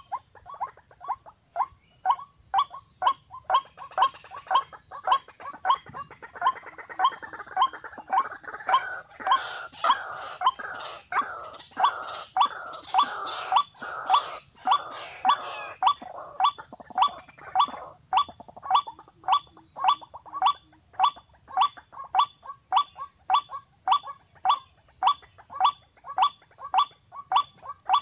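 White-breasted waterhen call: one note repeated steadily about twice a second, over a steady high hiss. In the middle a rougher chatter of further calls joins in.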